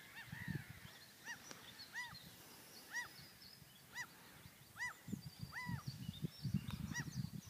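A bird calling over and over, about once a second, each call a short note that rises and falls in pitch, with faint higher chirps of smaller birds.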